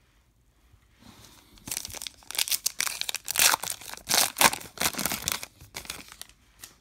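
A foil trading-card pack wrapper being torn open and crinkled by hand: a run of irregular crackling and ripping that starts a couple of seconds in and stops shortly before the end.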